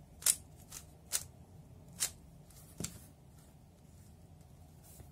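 Layers of a 3x3 speed cube being turned by hand: about five short, sharp plastic clacks spread over the first three seconds as an algorithm is executed.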